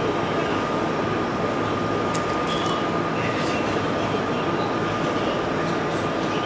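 Steady drone of a ferry's engines and machinery heard inside a passenger cabin: a constant low hum with a thin steady whine above it.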